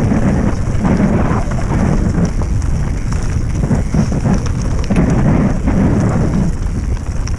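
Wind buffeting the microphone of a mountain biker's action camera on the move: a loud, uneven low rumble. Under it, the bike's tyres and frame rattle over a dirt trail.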